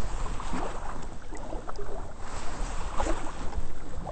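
Kayak paddling on calm water: the paddle blades dip and pull, and water splashes and drips off them in an irregular patter.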